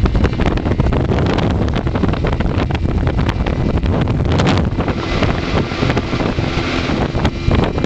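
Heavy wind buffeting on the microphone over the run of an outboard-powered speedboat at high speed, about 55 mph. Many short knocks come through the noise.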